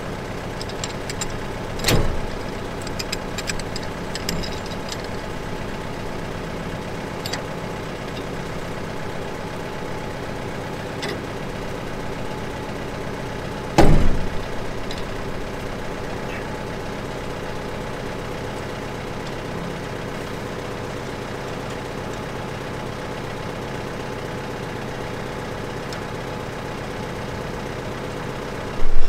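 John Deere 4052 tractor's diesel engine idling steadily, with sharp metal clanks from the three-point hitch's top link being fitted to the rotary cutter: one about two seconds in and a louder one around fourteen seconds in.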